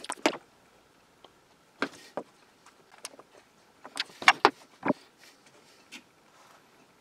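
Scattered sharp clicks and knocks of handling on a workbench: plywood pieces, a steel square and a one-hand bar clamp being set against one another. The clicks are busiest about four to five seconds in.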